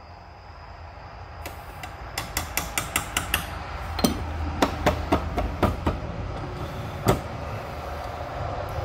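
Reloading gear handled on a wooden workbench: a quick run of light clicks as the cap comes off a plastic bottle of pistol powder, then about half a dozen sharper knocks and taps as the bottle and tools are set down.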